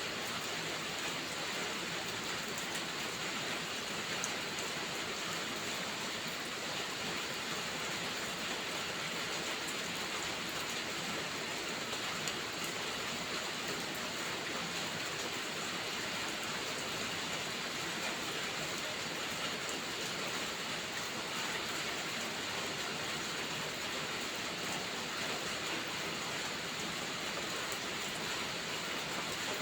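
Steady rainfall, an even hiss with a couple of brief sharper ticks.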